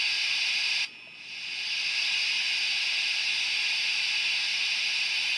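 Tsunami sound decoder in an HO-scale Athearn Genesis Union Pacific FEF 4-8-4 model steam locomotive playing a steady steam hiss through the model's small speaker. The hiss cuts out about a second in and swells back over the next second.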